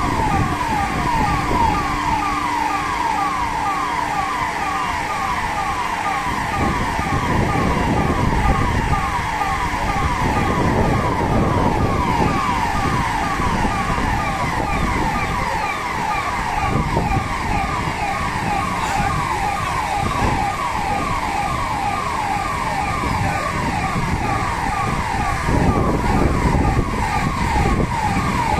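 Electronic emergency siren sounding continuously in fast, repeated falling sweeps, about three a second, over a steady low rumble from the drill's machinery and water jet.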